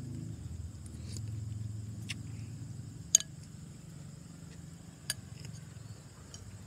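Night insects, likely crickets, chirping steadily in a high band, over a low steady hum. A metal spoon clicks against a bowl a few times, the loudest click about three seconds in.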